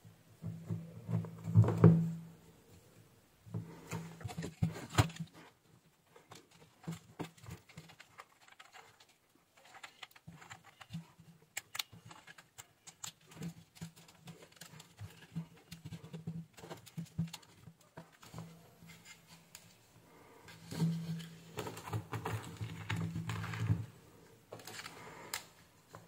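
Hands handling a hair dryer's power cord and open plastic handle housing, with irregular small clicks, taps and rubbing as the cable is fitted into the handle. The handling is louder in the first two seconds and again near the end.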